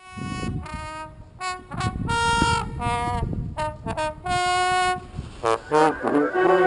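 Music: a bright lead instrument plays a run of short, separate notes over a low beat. About five and a half seconds in, a quick rising sweep leads into fuller music with several instruments.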